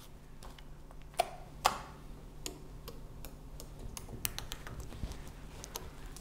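Homemade glue slime being squeezed in the hands and then poked and pressed on a tabletop, giving scattered small clicks and pops, two of them louder a little over a second in.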